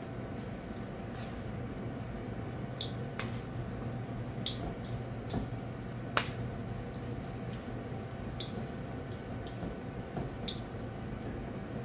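Wooden chopsticks tossing cellophane noodles in a large stainless steel bowl: scattered sharp clicks and taps as the sticks knock the metal, about ten in all, the loudest about six seconds in, over a steady background hum.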